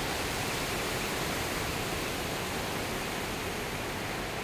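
Small waves breaking on a sandy beach: a steady, even wash of surf noise.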